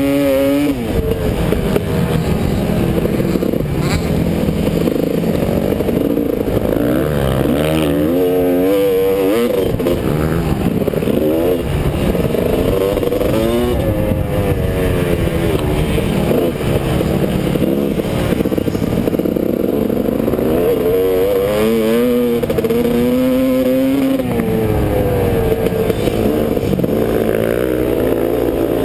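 Motocross bike engine heard close up from a camera mounted on the bike, revving hard and dropping back over and over as the rider works the throttle and gears around the track, its pitch climbing and falling many times.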